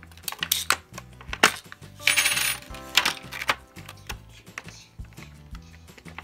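Scissors snipping through a hard clear plastic blister pack: a run of sharp clicks and crackles, with a longer crinkling rustle about two seconds in.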